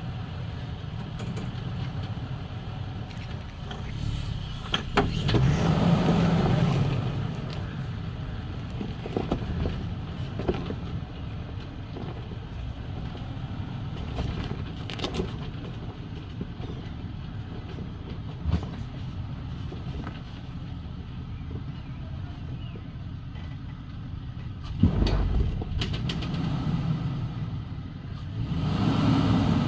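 Toyota Tacoma pickup's engine running at low speed as the truck crawls a steep, rutted sandy trail, revving up about five seconds in, again near the end and once in between, with a few sharp knocks from the truck working over the rough ground.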